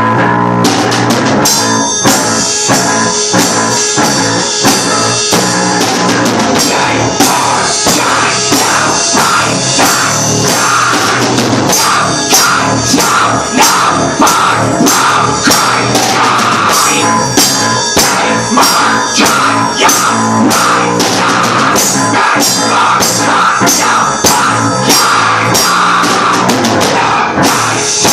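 A rock band playing a heavy, loud song: guitar and a drum kit pounding out a steady beat, the full band kicking in about a second in.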